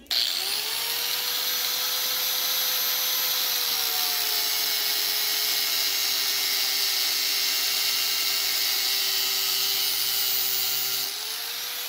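Angle grinder with an abrasive cutoff wheel starts at once and runs steadily while cutting through a heavy battery cable. Its motor whine sags slightly about four seconds in as the cable bears on the wheel, and rises again near the end as the load comes off.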